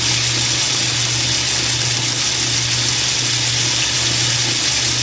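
Atlas metal lathe running steadily, a constant hum with a hiss over it, as it takes a light facing cut on a spinning cast iron engine cylinder casting.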